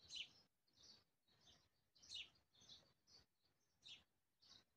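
Faint bird chirping: short, evenly repeated chirps, about two a second, with near silence between.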